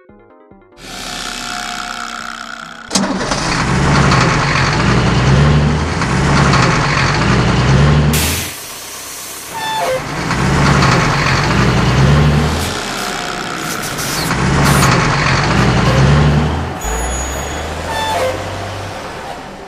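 Sound effect of a heavy tow truck's engine running and revving, swelling and easing off three times, with a short hiss about eight seconds in.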